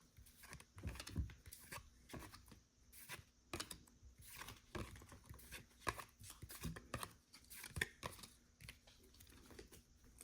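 Faint, irregular rustling and soft clicks of football trading cards being flipped through one at a time in the hand.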